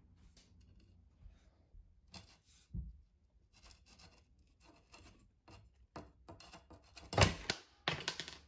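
A thin metal strip being bent by hand over a round metal rod on a wooden workbench, scraping and clicking against the rod and the bench in short, irregular scrapes. The loudest scrapes come about seven and eight seconds in.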